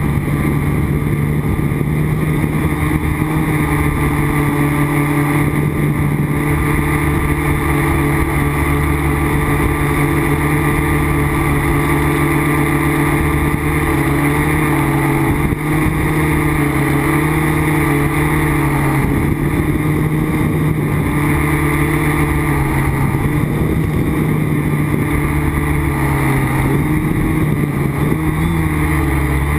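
Quadcopter's electric motors and propellers buzzing steadily, heard close up from on board, the pitch wavering a little with throttle changes.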